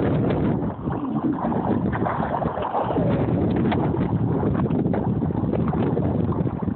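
Wind rumbling on the microphone of a Sunfish sailboat under sail, a loud, uneven noise.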